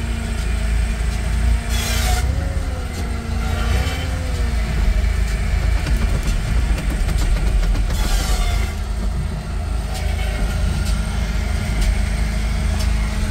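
Diesel engine running steadily, heard from inside the cab of a Hitachi ZW50 compact wheel loader while a firewood processor works. There is a low hum throughout, a wavering whine for a couple of seconds near the start, and two short louder noisy bursts about two and eight seconds in.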